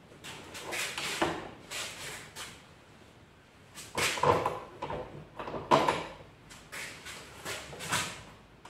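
Hands fitting a clear plastic scooter windscreen and its mounting nuts and bolts: a scatter of short, light knocks and rustles, the loudest about four and six seconds in.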